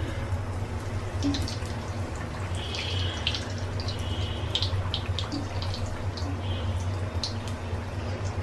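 Rice-flour batter fritter deep-frying in hot oil in an iron karahi: the oil bubbles and sizzles around it, with scattered sharp pops and crackles over a steady low hum.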